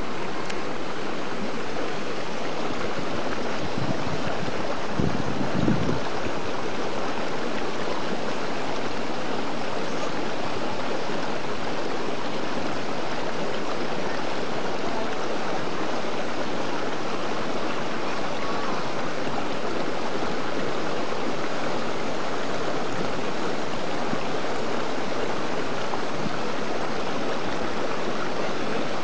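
Steady rushing water noise, even and unbroken, with a brief low thump about five seconds in.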